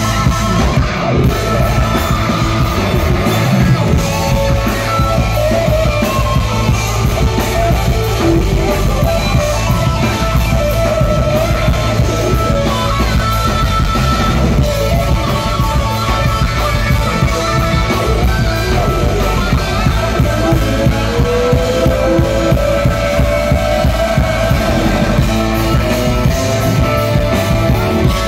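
Live rock band playing loud through a PA, heard from the crowd: drum kit, bass, electric guitars and keyboards. About twenty seconds in, one instrument plays a long slide upward in pitch.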